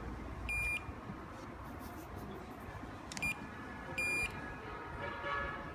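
Wireless pager watch receiver giving short high electronic beeps as its menu keys are pressed: one about half a second in and another about four seconds in, with a faint click between them.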